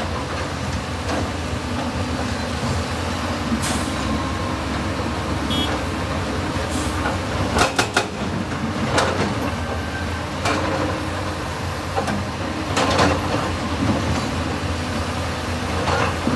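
Excavator running steadily at a construction site, its engine rumbling while sharp metallic clanks and knocks come every second or two, with a quick cluster of clanks about halfway through.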